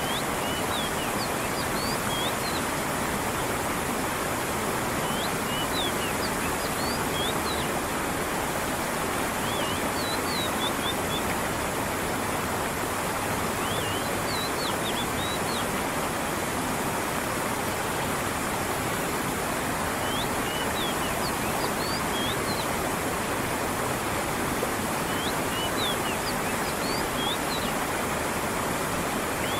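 Stream water rushing and falling steadily, with small birds chirping high over it in short clusters of quick rising and falling notes every few seconds.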